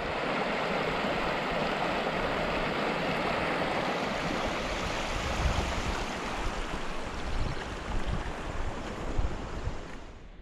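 Shallow stream water rushing and splashing in channels across a flooded grassy meadow: a steady rushing that fades out near the end. Low rumbling bumps come in over it in the second half.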